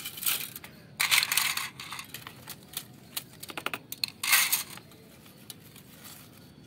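Blue plastic toy train track pieces being handled and pulled out of a plant pot: a few short bursts of rustling and plastic clattering, the loudest about a second in, with a quick run of small clicks before another burst just past four seconds.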